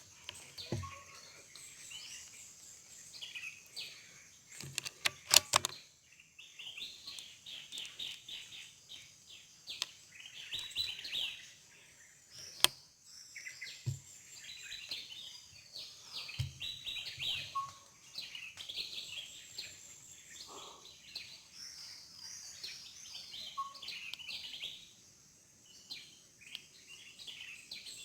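Many birds chirping and whistling together. A cluster of sharp clicks comes about five seconds in and is the loudest sound, and a single sharp crack comes near the middle.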